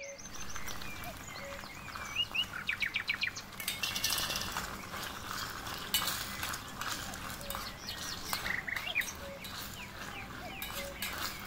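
Metal slotted spoon stirring and scraping against a small brass pot of onions in liquid, with irregular clinks and scrapes, while birds chirp in the background, including a quick run of chirps a few seconds in.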